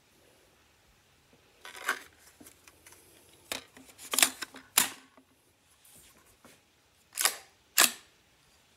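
Sharp metallic clacks, about six, from the action of a .50 Beowulf AR-15-style rifle being worked by hand (charging handle and bolt, magazine) as rounds fail to feed, which the shooter puts down to the magazine.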